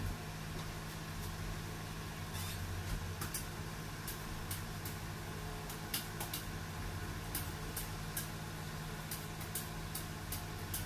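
Steady low machine hum, like a fan or refrigerator running, with scattered light clicks at irregular intervals.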